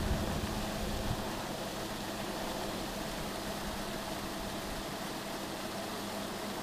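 Fishery lake aerator running: a steady motor hum over an even hiss of churning, bubbling water.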